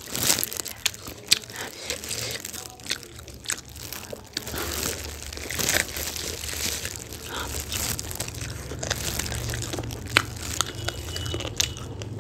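Close-miked eating of sauced chicken hot wings: irregular bites, chewing and wet mouth clicks, with the crinkle of disposable plastic gloves. A low steady hum runs underneath.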